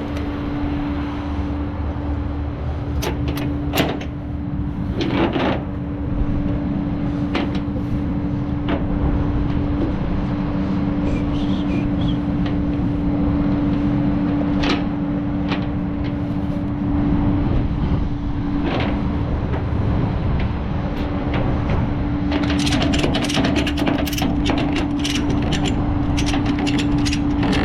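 Tow truck running with a steady whine over a low rumble, with scattered clicks and clanks that come thicker near the end.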